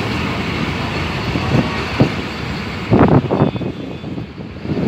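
Passenger train coaches rolling past, steel wheels running on the rails with a steady rumble. Sharp clacks come over the rail joints, with a loud cluster of them about three seconds in.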